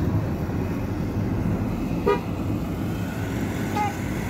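Steady road and engine rumble of a moving car, heard from inside the cabin, with a short horn toot about two seconds in and a fainter brief toot near the end.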